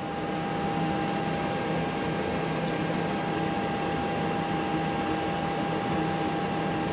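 Steady background hum and airy hiss of the Boeing 737 MAX flight deck's ventilation and equipment cooling running on the ground, with a constant high tone through it.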